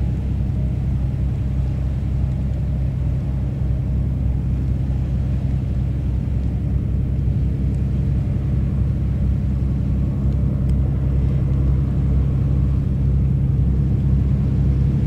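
High-speed passenger catamaran ferry running past under way: a steady low engine drone that grows slightly louder toward the end.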